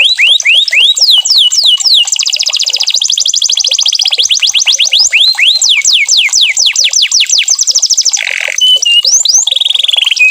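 Domestic canary singing a loud, continuous song: tours of rapid repeated down-slurred whistled notes, switching to a very fast trill about two seconds in, with a few lower, wavering notes near the end.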